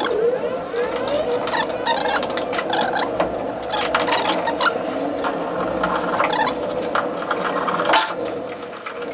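Rapid, busy clicking and rattling over a steady hum while wires are terminated into a fuse board with a screwdriver. A sharp click comes about eight seconds in, and then the sound drops away.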